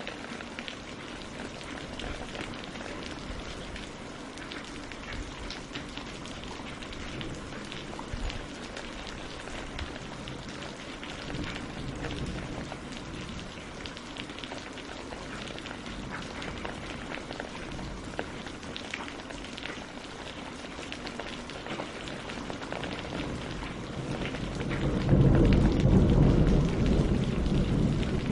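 Steady rain falling on a mountain lake and tree leaves, a hiss full of small drop ticks. About twenty-five seconds in, a loud, deep rumble of thunder swells up over the rain.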